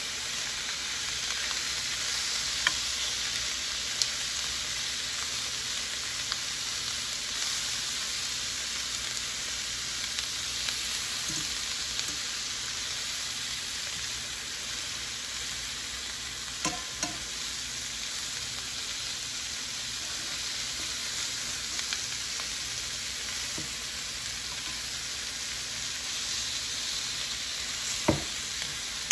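Beef strips sizzling in butter in an electric skillet, a steady frying hiss, with a few short knocks against the pan as the strips are turned.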